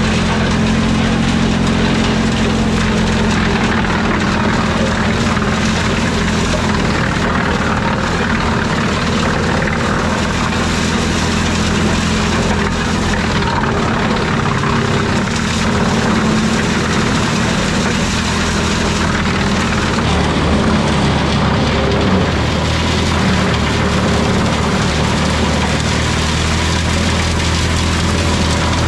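Eschlböck Biber 7 wood chipper running steadily with its tractor engine under load, chipping wood into wood chips, a loud continuous drone with a dense rattling hiss over it.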